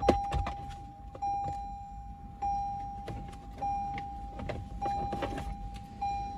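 A Toyota 4Runner's electronic warning chime beeps steadily at one pitch, pulsing louder about every 1.2 seconds, with the ignition on and the driver's door open. Plastic clicks and knocks come from the lower dash trim panel being pried loose and pulled off.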